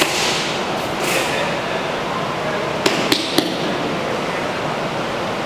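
Body thrown onto a floor mat, landing with a thud at the start, then three quick sharp knocks about three seconds in, over a steady hiss.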